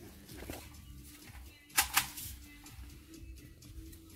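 Quiet background music playing in a shop, with one sharp click or knock a little under two seconds in.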